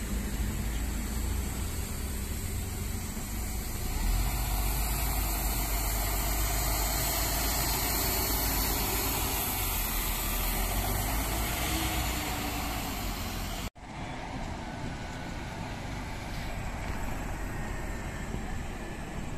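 City bus engine running as the bus drives slowly past, a steady low rumble that grows louder a few seconds in. The sound breaks off abruptly about two-thirds of the way through and comes back quieter.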